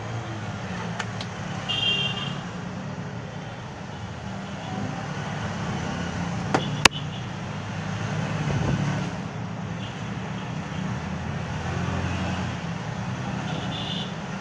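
Steady low background rumble, with a brief high-pitched tone about two seconds in and a single sharp click, the loudest sound, just before seven seconds in.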